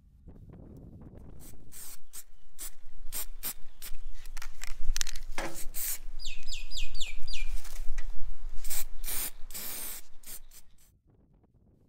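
Aerosol spray paint can spraying black paint onto a metal frame in a series of short hisses, with a few longer bursts, stopping abruptly near the end.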